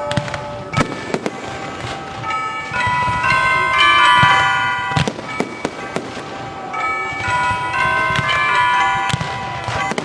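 Fireworks going off with sharp bangs, a few about a second in and more around five and nine seconds, over bells ringing a run of many different notes.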